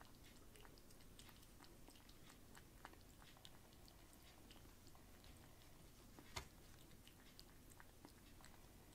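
Kitten lapping water from a bowl: faint, quick, irregular licking clicks, with one sharper click about six seconds in.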